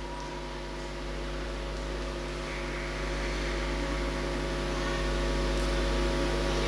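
Steady hum and hiss of an ice rink's background noise, with several constant hum tones, slowly growing louder.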